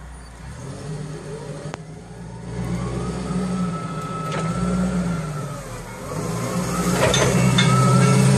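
Yale GLP25VX LPG forklift engine running as the truck drives closer, growing louder, its engine pitch rising and falling with the throttle. A thin whine rises and falls with the engine, and a few clicks come near the end.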